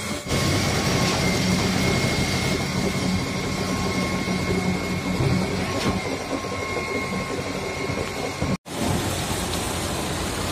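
Sany 47-metre truck-mounted concrete pump running during a concrete pour: a steady, dense machine rumble with a thin high whine over it, cutting out for an instant about eight and a half seconds in.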